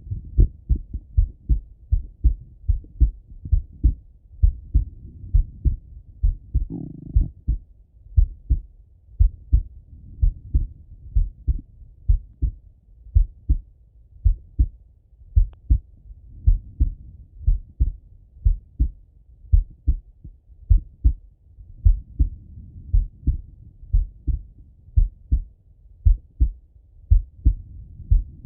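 A man's slow heartbeat heard through a Littmann stethoscope: a steady run of low, paired lub-dub thuds.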